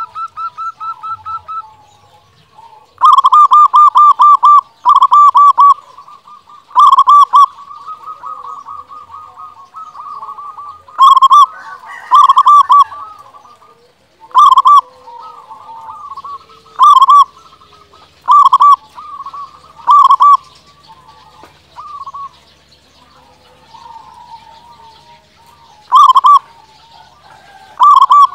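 Local zebra dove (perkutut) singing in full voice: loud bursts of rapid cooing notes, repeated every one to three seconds, with softer trilling coos in between.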